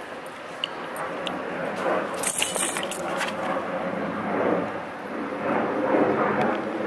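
A dog's fur rubbing and scraping right against the microphone as it nuzzles the camera, with the metal links of its chain collar jangling, most brightly about two and a half seconds in.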